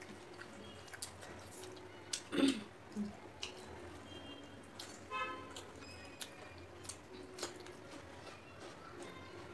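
Close-up eating sounds: wet chewing, lip smacks and fingers squishing rice in curry, as a run of scattered small clicks and smacks, the loudest about two and a half seconds in. A brief pitched sound comes about five seconds in.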